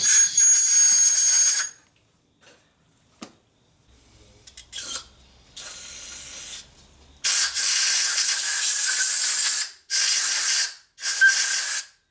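A blast of compressed air from a blow gun, then bursts of aerosol parts cleaner hissing through its straw: one quieter burst, then three long loud ones in the second half, cleaning out threaded bolt holes in the cast iron.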